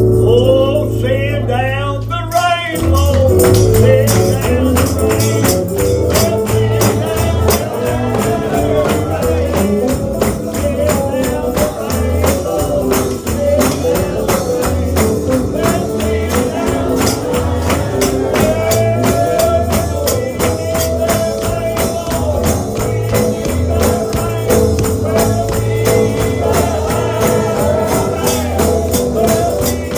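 Holiness gospel music: a band with a fast, steady tambourine beat, a bass line and singing voices. The tambourine and full band come in about two seconds in.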